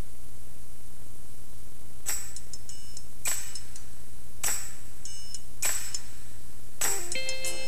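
Steady low electrical hum and hiss, then the start of a music track: a ringing metallic percussion strike about every 1.2 seconds, five in all, with pitched instrument notes coming in near the end.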